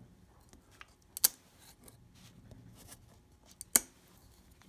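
A thin blade prying and scraping at a strip of wood glued to a mandolin fingerboard: a few short, sharp clicks and cracks of wood, one about a second in and the loudest nearly four seconds in.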